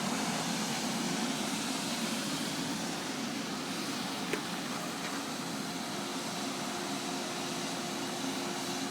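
Steady whirring drone of an iron-melting furnace running under its air blast, with a faint even hum; a single small tick about four seconds in.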